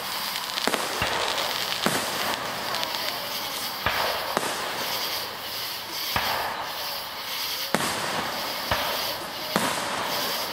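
Aerial firework shells bursting in quick succession: about eight sharp bangs at uneven intervals of one to two seconds, over continuous crackling.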